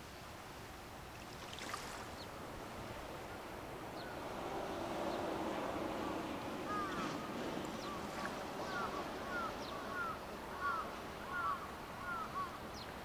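A bird calling in a run of short, repeated chirps, about two a second, starting about halfway through, over steady outdoor background noise that swells in the middle.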